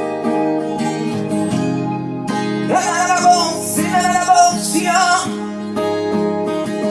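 Worship music: an acoustic guitar strums sustained chords, and a brighter melodic line rises over it in the middle.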